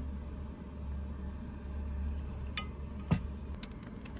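A low steady hum that stops about three and a half seconds in, with a single sharp knock a little after three seconds as a stainless steel vacuum flask is set down on a shelf, followed by light clicking crinkles of a plastic food packet being handled.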